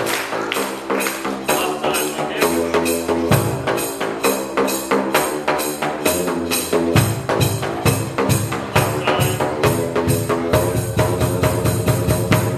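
Tuned drain-pipe drum struck with flip-flops, playing a melody in rapid, even strokes of pitched plastic slaps, several a second, with a tambourine jingling along.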